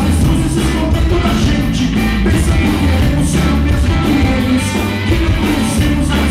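Live rock band playing loudly: electric guitar, electric bass and drum kit with cymbals, running steadily without a break.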